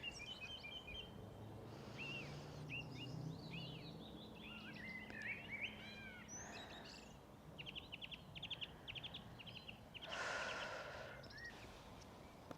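Small songbirds singing and calling, a string of short chirps and whistles, with a fast rattling trill about seven to nine seconds in. A short rush of noise near the end.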